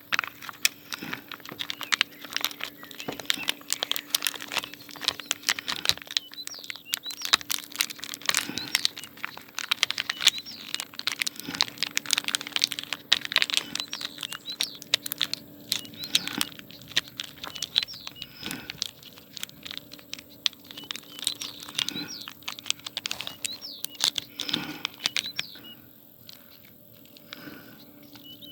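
Dense, irregular crackling and crinkling, with short bird chirps now and then.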